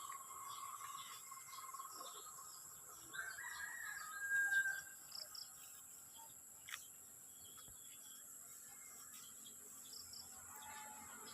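Outdoor ambience of steady high-pitched insect buzzing with scattered bird calls. A louder held call lasting about a second and a half comes around four seconds in, and there is a single click a little later.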